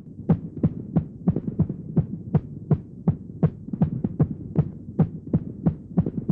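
Steady rhythm of short, sharp knocks, about three a second, over a low steady hum.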